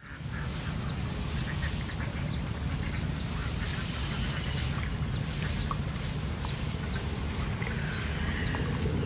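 Bird calls with ducks quacking: many short, quick chirps through the whole stretch and a few lower calls near the end, over a steady low rumble.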